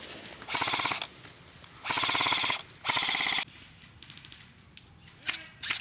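Airsoft electric rifle firing on full auto: three short bursts of rapid mechanical clacking, about half a second in, two seconds in and three seconds in, then a few scattered sharp snaps near the end.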